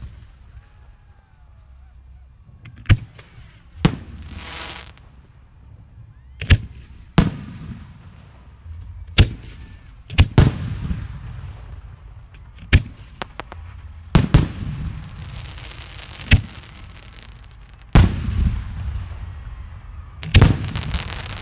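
Display fireworks shells bursting in the sky: about a dozen sharp bangs at uneven intervals, each followed by a rolling rumble. About four seconds in comes a hissing, crackling stretch lasting about a second.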